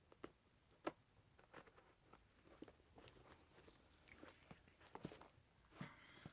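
Faint, scattered clicks and rustles of a tape-wrapped package being handled and turned over.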